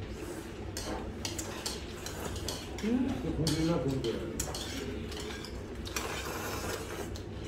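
Eating noodle soup: slurping noodles and broth from a small bowl, with chopsticks clicking against the dishes, and a short hum of voice about three seconds in.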